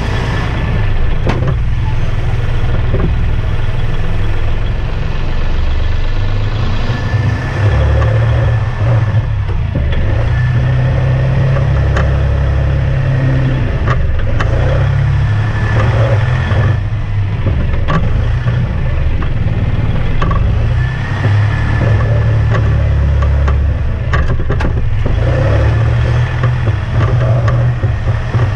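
Kubota compact tractor's diesel engine running as the tractor is driven, its level rising and falling, with occasional clanks and rattles and a faint high whine.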